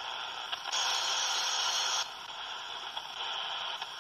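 Retekess PR15 pocket radio's speaker hissing with AM static while being tuned across the medium-wave band. The static swells louder for about a second near the start, then drops back.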